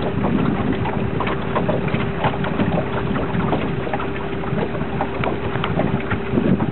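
Boat motor running with a steady hum, under heavy wind noise on the microphone and a rush of water, with scattered crackling ticks.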